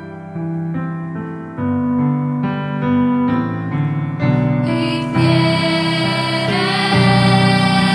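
Grand piano playing a slow introduction of separate chords, then a youth girls' choir comes in singing over the piano about four seconds in.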